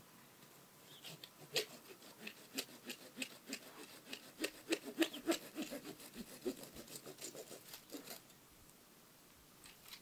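Irregular scraping, rustling and small clicks of hands working at the base of a young tree, close to the ground. The sounds are busiest from about a second in until about eight seconds, then die down.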